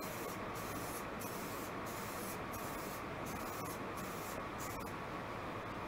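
Aerosol spray-paint can hissing in a run of short bursts with brief gaps between them, stopping about five seconds in. The can is putting a dark undercoat over a white-cored foam cooler.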